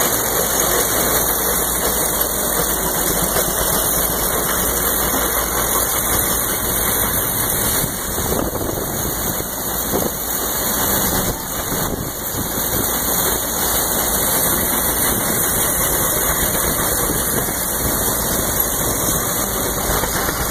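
Steam-powered, belt-driven threshing machine running steadily while threshing oats, a continuous mechanical din with straw blowing out of its stacker pipe.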